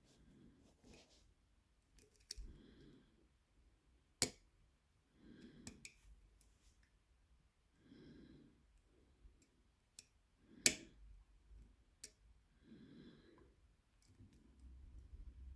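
Lock picks working a challenge lock: a few sharp clicks and light metallic ticks at irregular moments as the pins give feedback, with slow breathing about every two and a half seconds between them.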